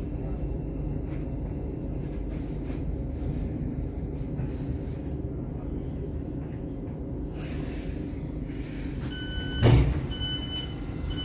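Inside a Thameslink electric train carriage: a steady running rumble as the train draws to a stop, with a hiss about seven seconds in. Near the end the door beeps sound, with two loud thumps as the sliding doors open.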